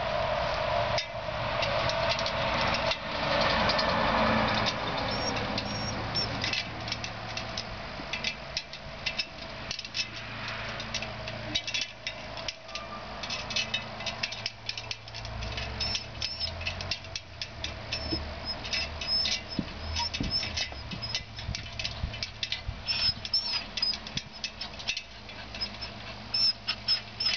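Irregular light clicks and knocks of a dog's paws and claws on the rungs of an aluminium ladder as it climbs, after a steady hiss in the first few seconds.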